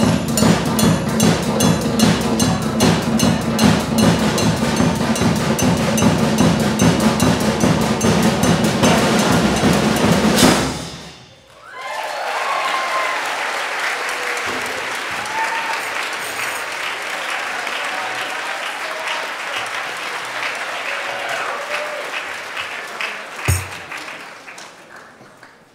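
Student percussion ensemble of hand drums and drum kit playing a fast, steady rhythm that ends on a sudden final hit about ten seconds in. An audience then applauds with some cheering, the applause dying away near the end, with a single knock shortly before it fades.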